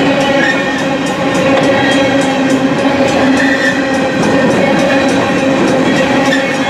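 Freight train of steel coal cars rolling past close by: a loud, steady rumble and clatter of wheels on rail with a constant ringing tone and short high squeals every couple of seconds.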